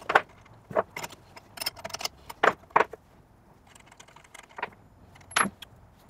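Sharp metallic clinks and taps as a spanner wrench and a steel shaft are handled on a CNC router's collet. There is a quick run of irregular clicks in the first three seconds, a few faint ones after, and one loud clink near the end.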